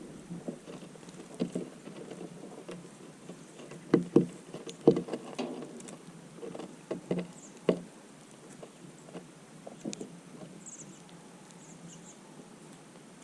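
Small birds feeding on scattered seed: irregular soft pecks, taps and hops, with a few short, faint high chirps near the end.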